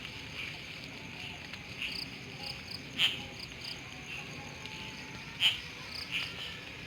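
Night-time chorus of crickets, many short high chirps repeating steadily, with a couple of louder sharp chirps standing out, about three and five and a half seconds in.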